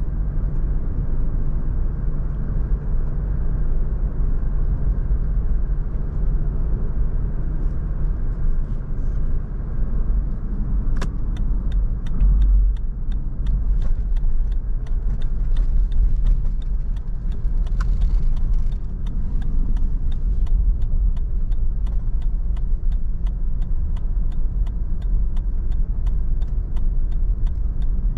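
Steady low road and engine rumble of a Lexus LX500d SUV being driven. From about a third of the way in, a regular ticking runs alongside it.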